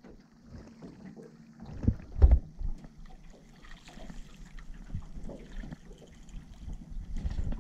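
Reeling in a small catfish from an aluminum jon boat: two low thumps about two seconds in, then light clicking and rustling from the spinning reel and rod handling. It grows a little louder near the end as the fish is brought splashing to the surface beside the boat.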